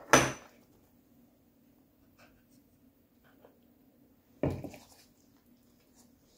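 Hands handling a glass baking dish and a bowl of tomato sauce: a sharp knock just after the start, a heavier thud about four and a half seconds in, and faint taps between, over a steady low hum.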